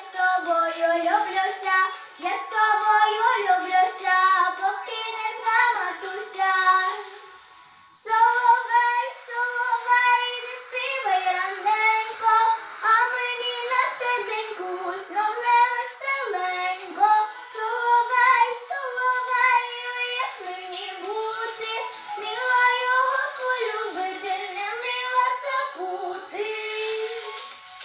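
A young girl singing a folk song, with a short break about seven seconds in before the next phrase starts.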